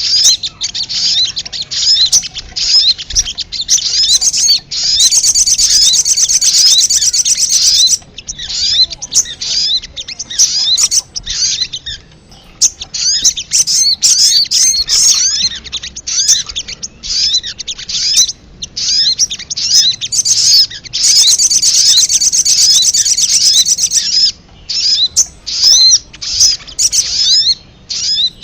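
Sogon (sogok ontong) bird calls from a lure recording: a fast, busy stream of short, high-pitched chirping notes, with two stretches of rapid, continuous trilling.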